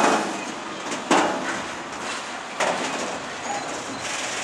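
Slow-moving engineering train of flat wagons rolling past, with three sharp metallic clanks a second or so apart over a steady rolling rumble.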